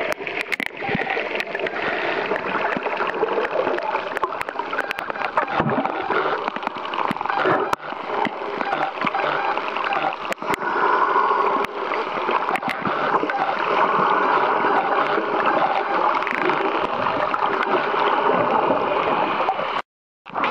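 Water gurgling and splashing around a camera held just under the sea surface, with scattered sharp clicks. The sound drops out for half a second near the end.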